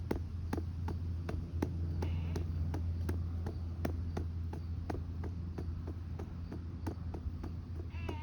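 Hand patting the back of a RealCare infant-simulator doll to burp it: steady, even pats about three a second over a constant low hum.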